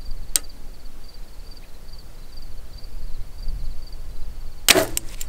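A Mathews VXR compound bow held at full draw, then shot near the end: one short, sharp report from the string and limbs as the arrow leaves, followed by a couple of small clicks. A faint high-pitched insect chirp repeats steadily in the background.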